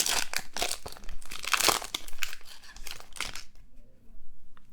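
Trading-card pack wrapper crinkling and crackling as it is handled and torn open, for about three and a half seconds, then only faint handling noises.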